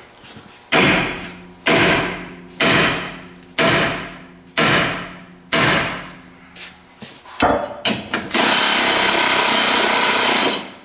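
Heavy hammer blows on steel, six strikes about a second apart, each ringing, as a seized old ball joint is driven out of the axle knuckle. After two or three more knocks, a power tool runs steadily for about two seconds and stops.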